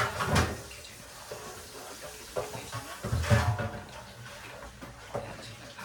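Soft thumps and cloth rustling of a person making full prostration bows, once at the start and again, louder, about three seconds in, with a few light clicks between.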